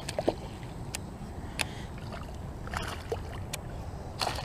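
Hooked bass being reeled up to a kayak on a spinning rod: scattered sharp clicks and knocks, about eight in four seconds, over a steady low rumble of water and wind.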